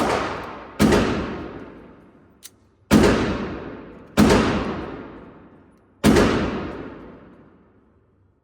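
Glock 19 Gen 3 9mm pistol fired five times at an irregular pace, each shot ringing out in a long echoing decay.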